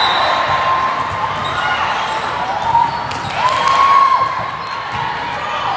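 Volleyball rally in a large echoing hall: sharp slaps of the ball off players' arms and hands over a steady hum of crowd voices. Several short high squeals, the loudest about three and four seconds in.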